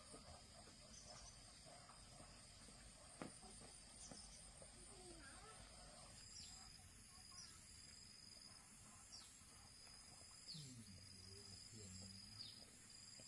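Faint, steady high-pitched trilling of crickets. From about halfway, short falling chirps of a bird repeat roughly once a second.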